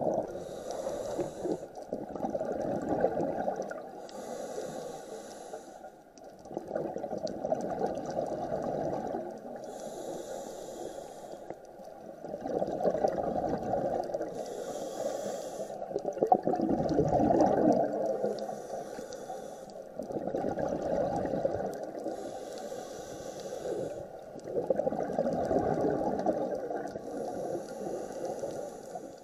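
Scuba diver breathing through a regulator underwater, in a slow cycle: about seven inhales, each a hiss lasting about a second, alternating with longer, louder rushes of exhaled bubbles.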